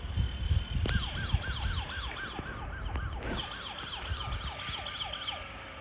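Battery-powered toy's electronic siren: a quick falling wail repeating about three times a second, over a low rumble.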